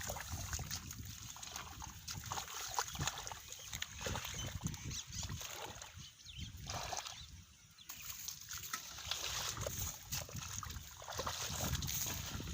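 Water splashing and sloshing in irregular bursts as hands grope through shallow water, with a brief lull about seven seconds in.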